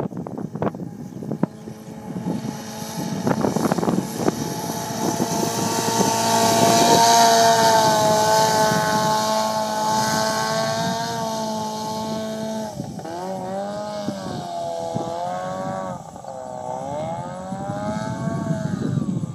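Lawnmower-engine-powered jon boat running at speed, growing loudest as it passes about seven seconds in, with the hiss of spray. From about thirteen seconds on the engine's pitch rises and falls several times. Wind buffets the microphone in the first few seconds.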